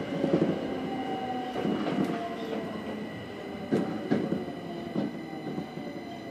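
Inside a Tokyo Metro 02 series car with PMSM VVVF drive braking into a station. The motor whine falls in pitch as the train slows, over a steady high electrical tone. A few clunks come from the wheels, and the sound grows quieter toward the end.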